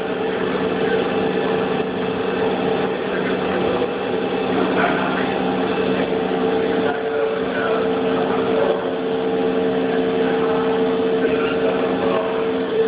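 Haas CNC milling machine running steadily, a mechanical hum with a strong constant tone; a second, lower tone comes in about seven seconds in.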